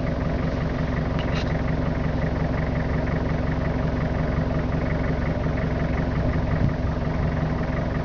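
A vehicle's engine idling steadily with a low, even hum while it stands still.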